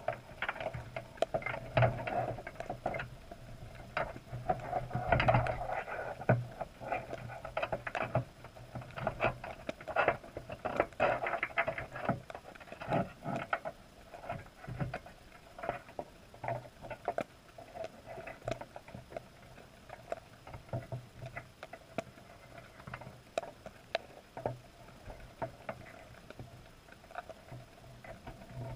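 Underwater sound through a camera's waterproof housing: many irregular clicks, taps and knocks, busiest in the first half, over a steady low hum.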